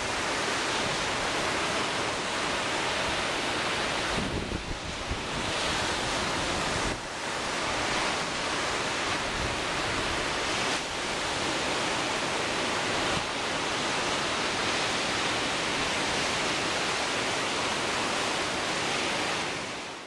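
Wind-driven lake surf breaking on the shore in a windstorm: a dense, steady rush of crashing water, with strong gusts buffeting the microphone.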